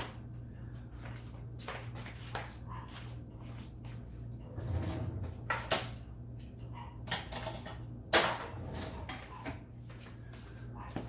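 Kitchen handling noises while a salad is finished: light rustling and a few sharp clicks and knocks, the clearest around the middle, over a steady low hum.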